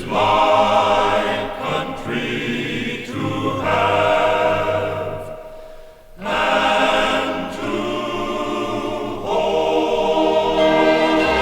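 Recorded choral music: a choir singing a patriotic song, with a short break between phrases about six seconds in.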